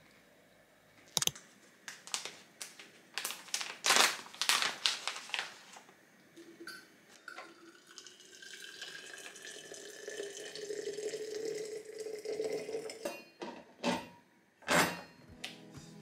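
Water poured from a kettle into a thermal pot to brew tea, the pouring tone rising slowly as the pot fills. Before it come scattered clicks and clatter, and a few sharp plastic clicks near the end as the pot's lid is handled.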